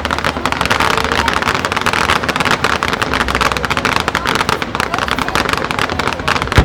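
Fireworks crackling: a dense, unbroken run of rapid pops from crackle-star shells, with a louder bang at the very end.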